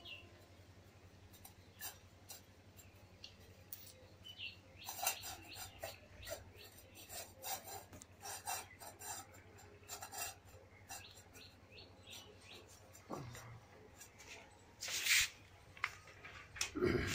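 An Indian street dog eating Maggi noodles from a steel bowl: irregular small clicks and scrapes of tongue, teeth and snout against the metal as he laps and chews. A louder burst of noise comes near the end.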